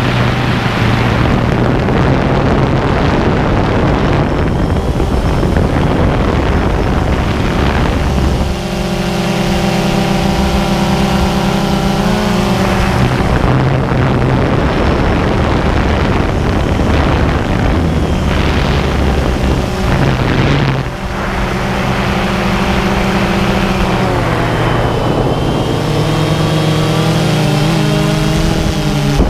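DJI Phantom 2 quadcopter's electric motors and propellers buzzing steadily, close to the mounted camera's microphone, with a rush of air behind them. The motor tones shift in pitch several times as the drone changes speed, gliding up and down near the end.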